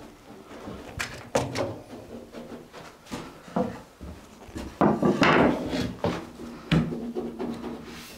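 A series of knocks and clatters, with a longer, louder scraping rustle about five seconds in.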